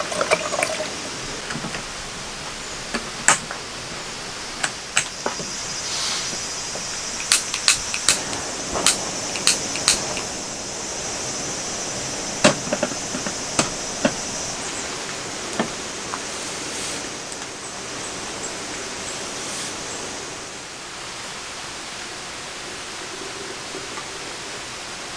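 Gas camping stove burner hissing for several seconds, with sharp clicks and knocks of metal and plastic gear being handled, over a steady background hiss.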